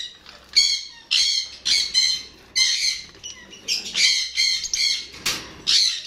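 Caged parrots squawking, harsh screechy calls repeating about twice a second.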